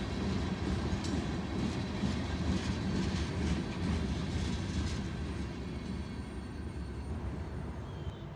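Loaded rock hopper cars of a freight train rolling past, a heavy rumble with repeated wheel clacks. The sound fades after about five seconds as the last car goes by.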